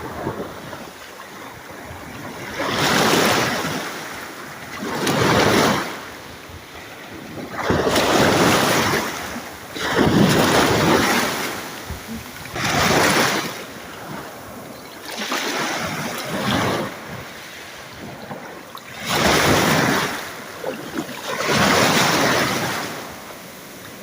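Small sea waves washing in and drawing back, one surge of wash every two to three seconds.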